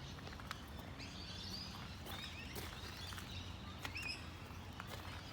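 Birds chirping now and then, with a few short calls, over a steady low background rumble.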